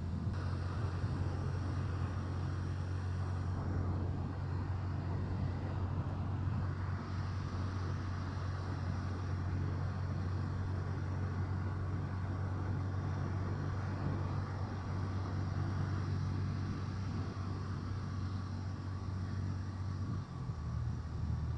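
Motorcycle engine running at a steady cruise, with road and wind noise, while moving a second, broken-down motorcycle along. The engine note shifts near the end.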